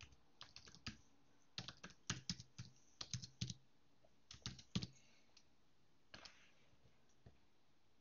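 Faint computer keyboard typing: quick bursts of keystrokes as a terminal command is entered, thinning to a few scattered keystrokes after about five seconds.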